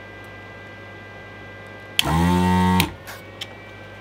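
Desoldering gun's built-in vacuum pump buzzing for just under a second about halfway in, sucking molten solder out of a through-hole joint. It stops with a click, followed by a few light clicks.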